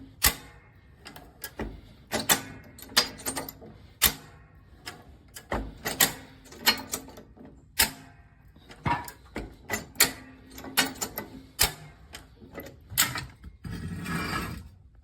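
Steel high-lift farm jack clanking and clicking as it is worked, sharp metal knocks coming irregularly about once a second. Near the end there is a short stretch of denser scraping and rattling that cuts off suddenly.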